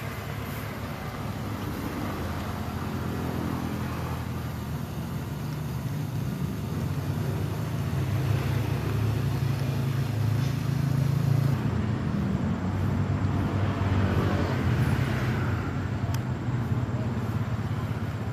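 Motor vehicle engine running with road and tyre noise, growing louder from about eight seconds in and easing off near the end.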